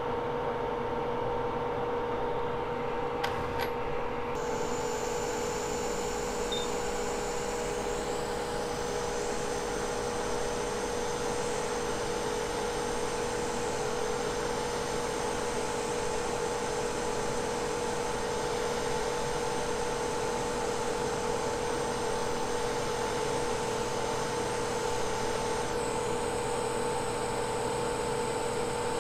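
Hot-air rework station blowing steadily, a constant rushing whir with a steady hum, while it heats the memory chip on a flash drive board to reflow its solder. The high hiss shifts slightly about four seconds in.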